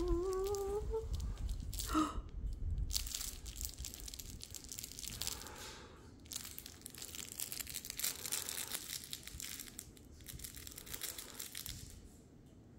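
Rustling and crinkly scuffing of bedding and a corduroy plush toy being handled, in irregular bursts that grow fainter. In the first second there is a short rising vocal whine, and about two seconds in a sharp crack.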